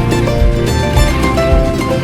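Background music: an instrumental passage of plucked strings over a steady beat.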